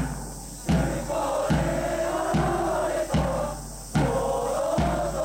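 Supporters' cheering section chanting in unison over a drum struck at a steady beat, a little faster than once a second, with long drawn-out chanted notes.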